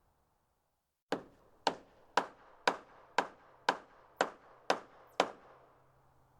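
Hammer striking wood nine times in a steady rhythm of about two blows a second, starting about a second in and stopping near the end.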